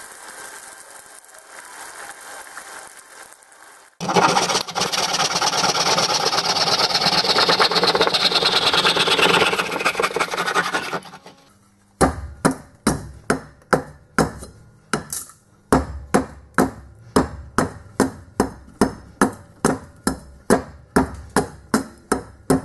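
A hatchet chopping and splitting a wooden hammer-handle blank, about two sharp blows a second, in the second half. Before that comes a soft hiss from the hot steel head cooling in the quench pan, then several seconds of loud, steady rushing noise.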